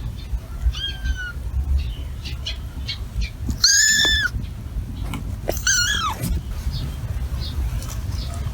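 Kitten mewing: three short, high calls, a faint one about a second in, the loudest about halfway and another soon after, each dropping in pitch at the end, over a steady low rumble.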